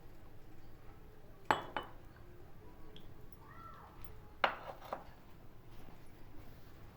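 Metal kitchen utensils clinking against cookware: two quick pairs of clinks with a short ring, about three seconds apart, and a faint brief chirp between them.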